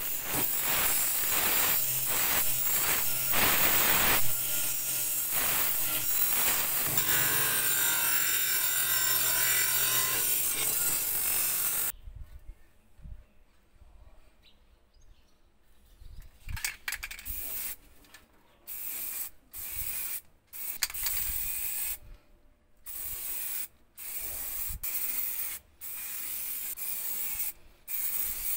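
A wire wheel on a bench grinder runs with a steady rasping hiss as a small metal stove part is pressed against it to strip it, stopping abruptly about twelve seconds in. After a quiet stretch, an aerosol can of heat-resistant paint hisses in a string of short sprays with brief pauses, from about sixteen seconds on.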